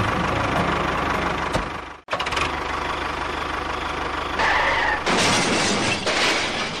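Tractor engine running steadily with an even low chug; it cuts out abruptly about two seconds in and comes straight back, and a louder rushing noise joins it about five seconds in.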